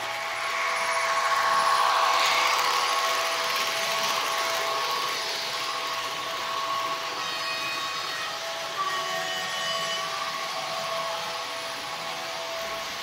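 ESU LokSound 5 decoder playing an ÖBB 2050 diesel locomotive's engine sound through the H0 model's small speaker. The sound swells for a couple of seconds near the start, and a few faint high tones and a small click come in about seven to nine seconds in.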